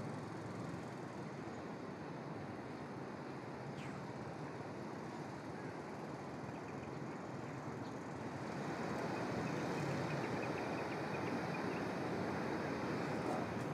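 Steady rushing outdoor noise that grows louder about eight seconds in.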